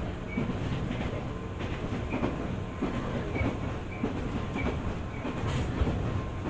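JR 205 series 600-subseries electric train running along the line: a steady rumble with irregular wheel clacks and knocks over the track, and a few brief high squeaks.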